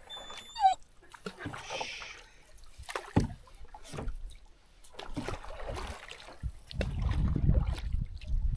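Canoe paddles dipping and pulling through lake water, with irregular splashes and drips along the hull. Wind buffets the microphone with a low rumble near the end.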